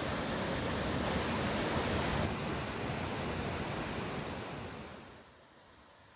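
Rushing water of a stream cascading down beside a road bridge, a steady rush of water. About two seconds in it cuts to a duller, quieter rush that fades out around five seconds in, leaving only faint outdoor ambience.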